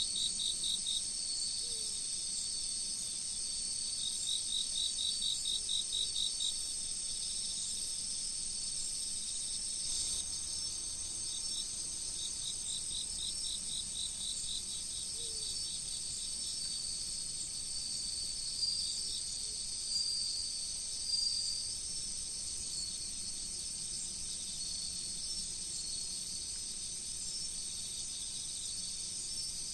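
Autumn crickets and other insects singing in chorus: a steady high-pitched trill, with trains of rapid chirps from another insect that start and stop three times. A faint rush of river water runs underneath.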